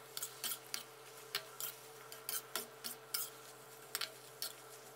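Metal spatula scraping and clinking against a wok as boiled bamboo shoots and minced pork are stir-fried, in short irregular strokes, over a faint steady hum.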